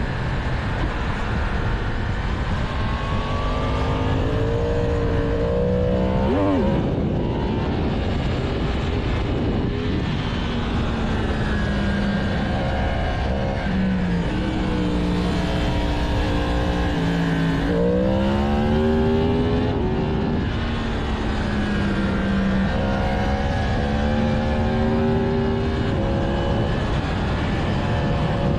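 2022 Yamaha MT-10's stock-exhaust crossplane inline-four running under way. The engine note rises with throttle, drops at gear changes and jumps sharply on quick blips, with stretches of steady cruising in between.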